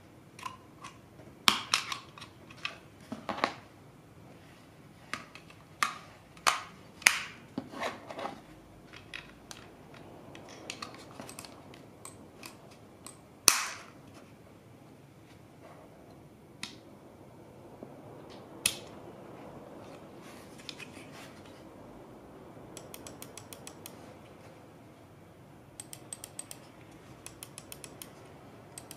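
Sharp plastic clicks and snaps from an Elecom TK-FDM063BK wireless mouse being handled, with its underside battery cover being opened and worked. Near the end, runs of fast, even ticking as the mouse's notched scroll wheel is turned.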